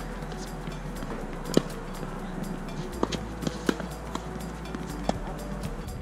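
Tennis ball being struck by rackets and bouncing on a hard court during a rally: a handful of sharp pops a second or so apart, the loudest about a second and a half in. Quiet background music plays underneath.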